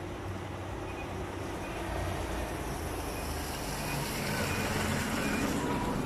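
A motor vehicle passing close by: road noise with a low rumble that grows louder and peaks near the end. Faint short high beeps repeat under it, a little under once a second.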